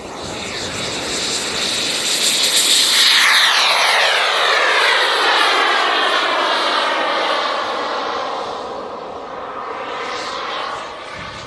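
Radio-controlled model airplane flying past: its engine sound swells to its loudest about three seconds in, then its pitch falls as it passes and fades.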